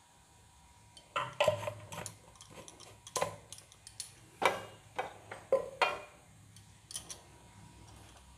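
Stainless-steel oil container and a small measure clinking and knocking against a frying pan and the stovetop, about seven separate hits, each with a short metallic ring.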